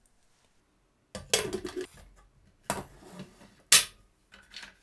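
Stainless-steel pressure cooker lid being set on the pot and locked shut: a run of metal clanks and scrapes starting about a second in, with one sharp, loud clank about a second before the end.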